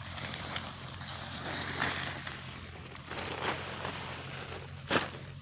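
Rustling and brushing of bamboo leaves and thin stalks as someone pushes through a young hia bamboo clump, with a few crackles and a sharp knock near the end.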